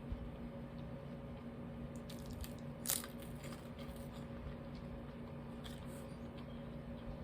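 A person chewing and biting a sandwich close to the microphone, with scattered small clicks and a sharp crackle about three seconds in. A steady low hum runs underneath.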